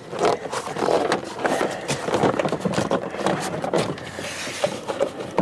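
Plastic door trim panel of a 2004 Jeep Grand Cherokee knocking and clicking against the door frame as it is pushed and worked into place, a run of irregular knocks.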